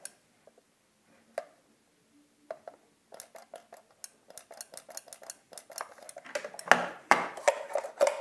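Plastic sewing-machine foot pedals handled and turned over in the hands: a run of small clicks and knocks from the casings. The knocks are sparse at first, then come thick and louder in the second half.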